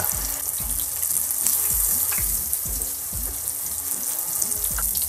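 Breaded apple slices deep-frying in a saucepan of hot oil, giving a steady sizzle of bubbling oil. Soft background music with a regular beat plays underneath.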